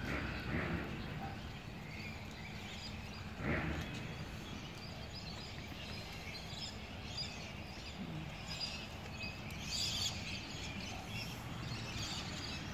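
Evening outdoor ambience: a steady low background rumble with scattered faint high chirps in the second half, and two brief louder bumps near the start.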